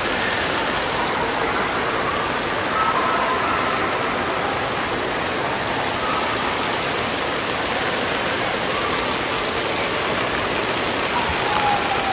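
Steady rush of water pouring and spraying from the spouts of a water-park play structure, an even hiss.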